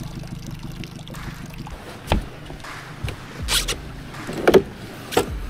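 Several knocks and clunks on an aluminium boat as a bow-mounted electric trolling motor is handled, after a low steady hum in the first two seconds.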